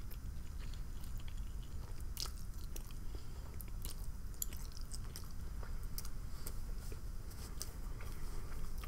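A person chewing food close to the microphone, with many small mouth clicks at irregular intervals over a low steady rumble.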